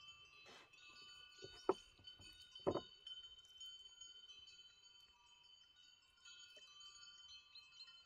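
Soft, steady ringing of chimes, several tones held at once, with two short knocks about two and three seconds in.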